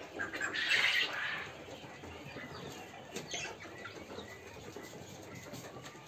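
Caged poultry flapping their wings in a short flurry about half a second in, then quieter shuffling and faint bird sounds from the pens.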